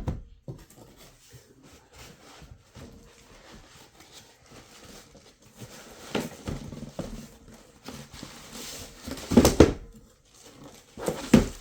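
Knife packaging being handled: rustling with a sharp click at the start and several louder knocks, the loudest about nine and a half seconds in.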